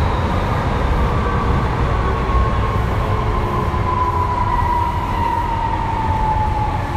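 Running sound inside a Kyoto Municipal Subway Tozai Line 50 series train with a Mitsubishi GTO VVVF inverter: a steady rumble of wheels and running gear in the tunnel, with the motor whine falling slowly in pitch as the train slows.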